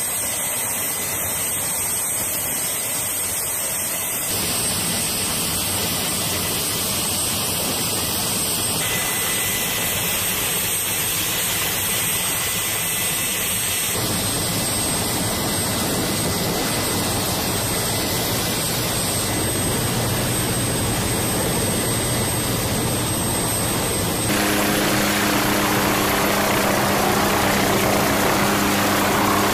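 MQ-8B Fire Scout unmanned helicopter running on deck: its turboshaft engine whines steadily under the rush of the spinning rotors. The sound shifts abruptly a few times and grows louder, with a steady low hum, about 24 seconds in.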